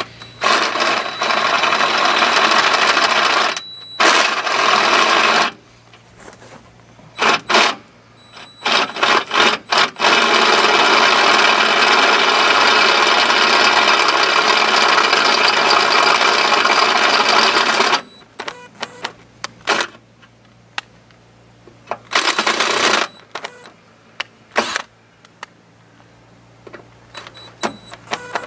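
Cordless drill with a 31/64-inch bit boring through a truck's steel frame rail, run in bursts. There are two runs of a few seconds, short blips, one long run of about eight seconds in the middle, then a shorter burst and a few blips near the end.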